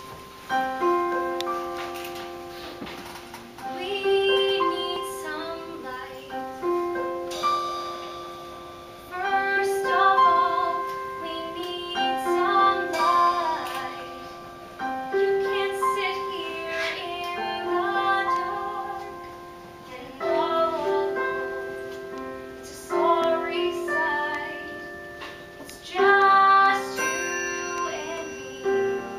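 Live piano playing a slow introduction: chords struck every two seconds or so and left to ring and fade.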